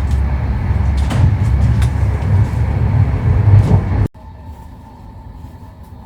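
Intercity train running on the track: a loud, low rumble with scattered clacks of the wheels and carriage. About four seconds in it cuts off abruptly to a much quieter, steady hum of the moving carriage.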